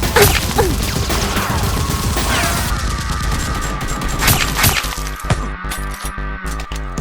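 Gunfire-like shots and sharp impacts over background music. A falling sweep comes in mid-way and settles into a steady high tone that holds to the end.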